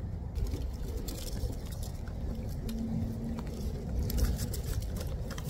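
Wind buffeting the microphone as an irregular low rumble, with scattered light ticks and taps over it and a faint steady hum around the middle.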